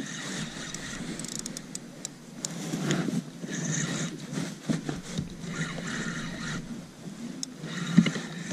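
Wind on the microphone and water lapping against a fishing kayak's hull, with a spinning reel being cranked to wind in the line and a few small clicks.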